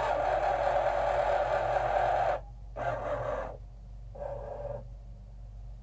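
Excalibur Phantom Force chess computer's motorized carriage under the board whirring as it drags the white knight from b1 to c3. It runs in one long stretch of about two and a half seconds, then two shorter, quieter bursts.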